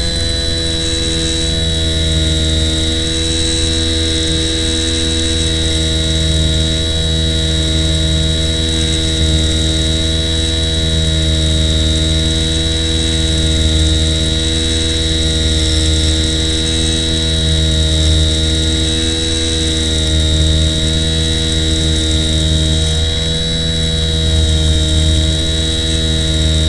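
Small electric motor, likely the RC plane's, running at a constant speed: a steady hum with a thin high whine above it.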